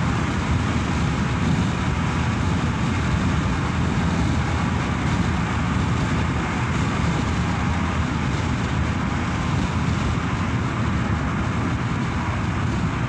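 Steady cabin noise of a moving car: a low rumble of tyres and engine under a hiss of wind and road noise.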